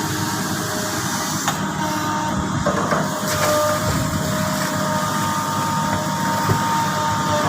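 Hydraulic excavator running steadily at work, its engine drone mixed with steady higher machine tones and a few sharp knocks.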